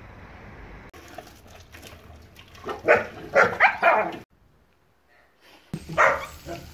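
Dogs in wire-mesh kennels barking: a quick run of loud barks about halfway through, then another bark near the end.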